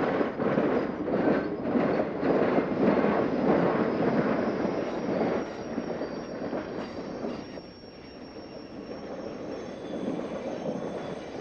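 Cape Cod & Hyannis Railroad passenger coaches rolling past close by, their wheels rumbling and clattering on the rails. The rumble eases off about two-thirds of the way through, while a faint, thin, high wheel squeal rings on.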